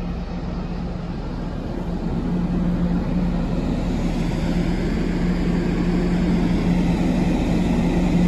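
Steady low drone of the ferry Sunflower Kirishima's machinery on its open deck, a constant hum that grows a little louder about two seconds in, with wind rumbling on the microphone.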